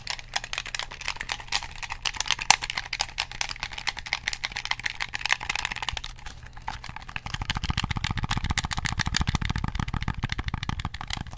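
PlayStation 2 controller buttons clicked rapidly: a fast, dense run of clicks. About seven seconds in, a deeper rapid thudding joins in for a few seconds.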